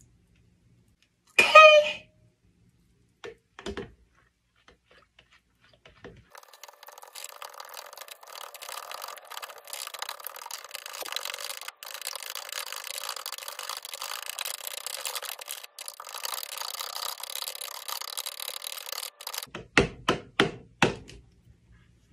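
A metal stirring rod scraping round inside a plastic jar of water, a steady rasp lasting about thirteen seconds with a few short breaks, then four or five sharp taps against the jar near the end. A brief loud pitched sound comes about two seconds in, and two small knocks follow.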